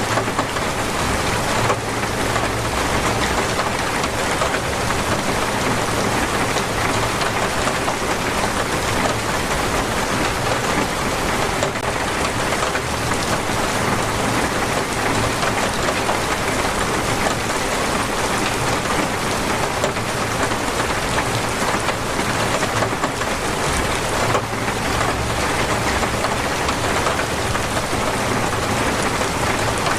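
Heavy, torrential rain falling steadily, a dense, even hiss with a low rumble underneath.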